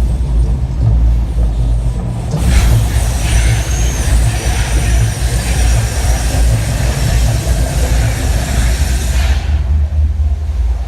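The Mirage volcano show's eruption effects: a deep, steady rumble, with a loud hissing rush from about two seconds in that stops sharply about two seconds before the end.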